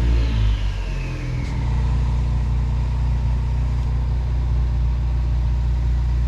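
Car engine idling steadily, with a high whine that falls away over the first two seconds.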